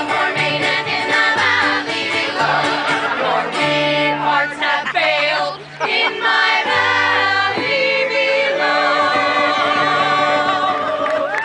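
Group of voices singing a tavern song together in harmony over steady low bass notes, ending in long held notes.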